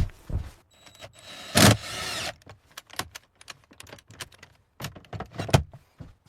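Handling noise from an object being set in place: a short scraping rush about a second and a half in, then scattered light clicks and knocks, with a few heavier thumps near the end.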